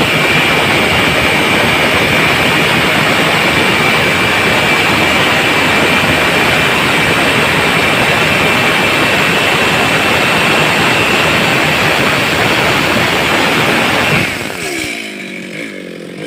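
Stihl chainsaw engine held at full throttle, running at a steady high-pitched scream for about fourteen seconds. Near the end the throttle is released and the revs fall away toward idle.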